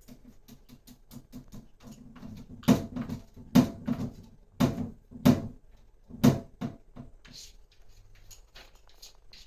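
Cat scratching and digging in the litter of a litter box: a run of quick scratchy ticks, with five louder knocks in the middle few seconds.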